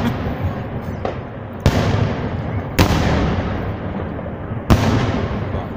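Aerial firework shells bursting in a salute: three sharp bangs at uneven intervals over a continuous rumble of further bursts and their echoes.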